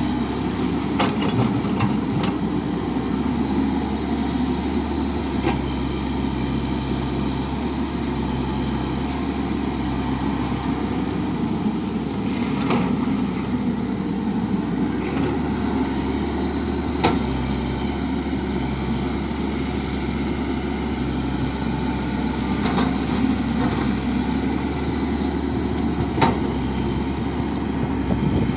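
Komatsu excavator's diesel engine running steadily, with a few short knocks every several seconds.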